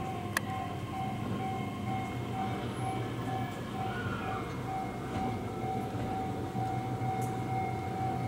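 A Japanese level-crossing warning bell ringing steadily at about two to three dings a second, over the low rumble of a JR East E131-series electric train rolling slowly into the station. There is one sharp click about half a second in.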